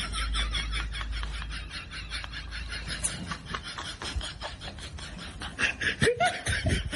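Two Indian Spitz dogs play-fighting: fast, even panting and scuffling, about six strokes a second, with a few louder, higher sounds near the end.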